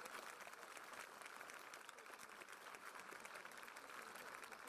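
Spectators applauding with steady clapping after a tennis point is won.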